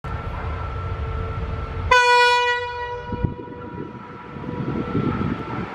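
A train horn sounds one blast about two seconds in: a single steady note with many overtones, strongest at the start and fading within about a second and a half. A low rail rumble runs underneath, with a short thump just after the horn.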